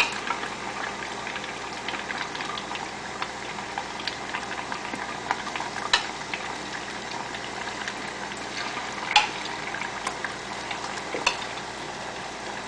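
Battered chicken pieces deep-frying in a pot of hot oil: a steady bubbling sizzle full of small crackles. Three sharp clinks of the metal spoon and plate stand out as pieces are dropped in.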